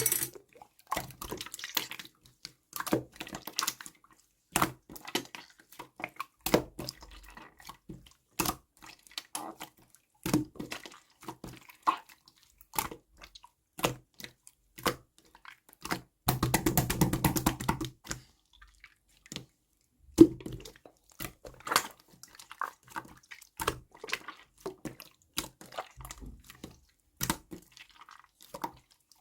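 Grapefruit-ade making at close range: scattered knocks, taps and clinks of containers and utensils, with a dense rapid rattle lasting about two seconds past the middle.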